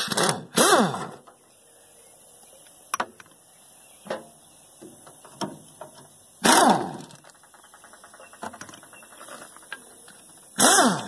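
Hand tools loosening engine-cover bolts: three loud squeaky metal screeches, each falling in pitch, with a ratchet clicking quickly in between and scattered clinks of metal.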